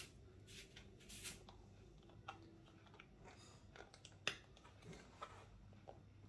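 Faint clicks and rustles of hands handling a plastic office-chair headrest and its mounting bracket, with one sharper click a little over four seconds in.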